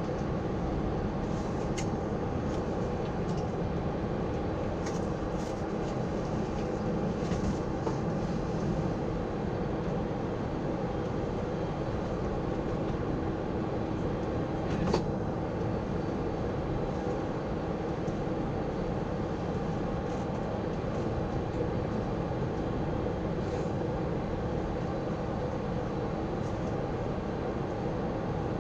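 Steady cabin rumble inside a Boeing 747-400's upper deck as the airliner taxis with its engines running, with a faint steady hum under it. A single sharp click comes about halfway through.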